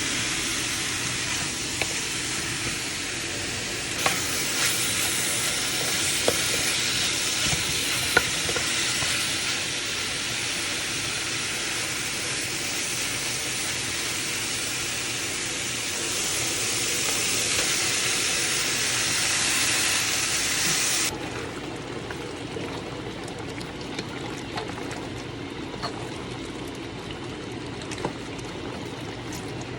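Pork frying with onion and garlic in a pan: a steady sizzle with a few sharp clinks of a utensil early on. About two-thirds of the way through the sizzle drops suddenly to a quieter level.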